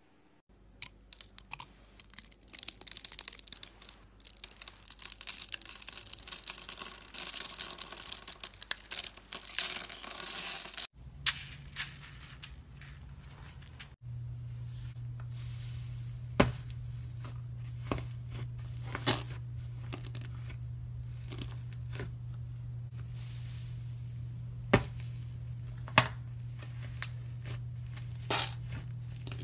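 Slime handled close to the microphone: dense crackling and tearing for the first ten seconds or so. After a cut it turns to cloud slime pressed and pulled in a plastic jar, with faint crackle and a few sharp clicks over a low steady hum.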